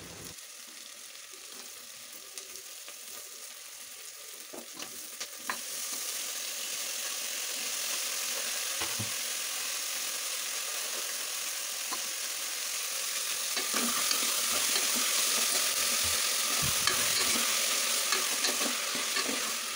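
Chopped onions, tomatoes and chillies sizzling in hot oil in an open aluminium pressure cooker, stirred with a steel ladle. The sizzle grows louder about five seconds in and again about halfway through. Scattered clicks and a few dull knocks from the ladle against the pot come through over it.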